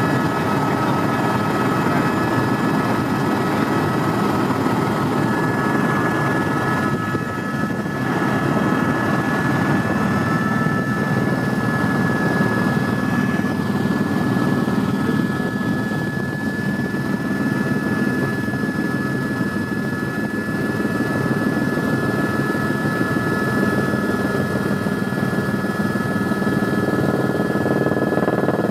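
Helicopter running steadily in flight: a dense, even rotor and engine noise with a thin, high whine held over it.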